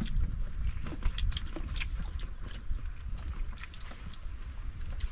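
People eating a meal: chewing and smacking mouth sounds with many short, scattered clicks, over a steady low rumble.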